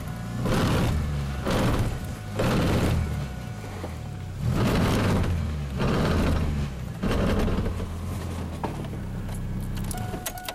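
Chevrolet car engine running and revving in gear while the car fails to move. A rough grinding noise swells up about once a second, the weird noise of a drive axle ripped out of the transmission, its splines stripping.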